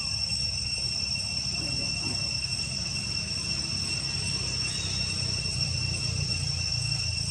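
Steady chorus of insects: an unbroken high-pitched drone at several pitches, over a low rumble, with a faint short chirp about five seconds in.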